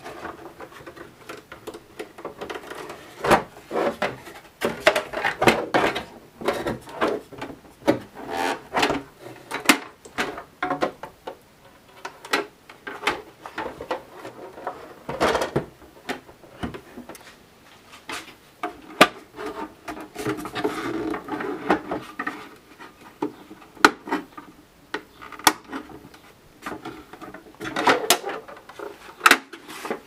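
Black plastic housing panels of a Philips automatic espresso machine being worked loose and lifted off by hand: irregular clicks, knocks and scraping of plastic on plastic.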